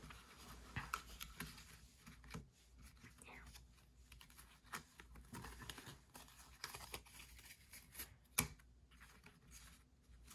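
Faint rustling and clicking of a stack of trading cards being gathered, squared up and set down by hand, with one sharper tap about eight seconds in.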